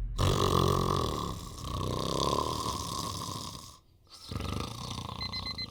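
A man snoring: one long snore lasting nearly four seconds, then after a short break a second, quieter one. Near the end an electronic alarm clock starts beeping in quick groups of high beeps.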